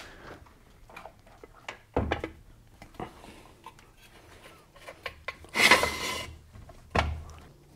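Metal knocks and clanks from an engine support bar being set across a car's engine bay and adjusted, with a louder, brief scraping rattle past the middle.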